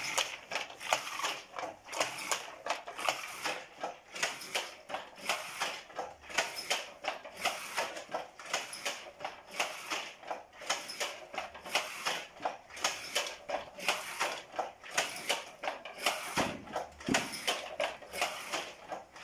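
Wooden hand loom working: a steady run of sharp wooden clacks, two or three a second, with one duller low thump near the end.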